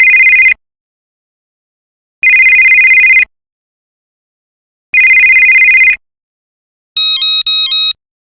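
Electronic telephone ringer trilling in three one-second bursts about 2.7 s apart, each a fast warble between two close high tones. Near the end a different electronic ring starts: three short, higher-pitched pulses within about a second.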